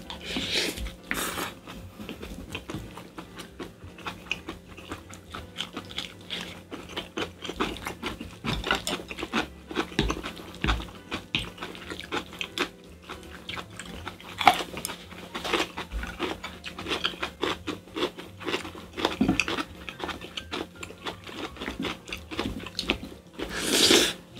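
Two people eating spicy stir-fried squid over rice, close up: constant chewing and mouth smacks mixed with short clicks of chopsticks and spoons against glass bowls. A brief louder burst of noise comes just before the end.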